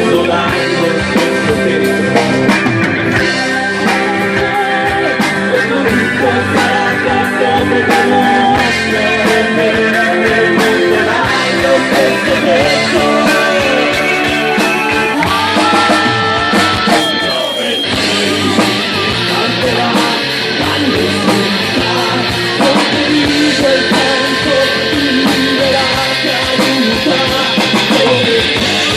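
Noise-rock band playing live: electric guitars and drums in an instrumental passage without singing, with guitar notes sliding in pitch about halfway through.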